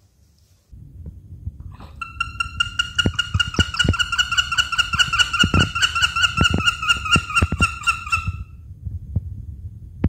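Young honey buzzard giving one long, high, rapidly quavering whistled call of about six seconds, over low thumps and rumble.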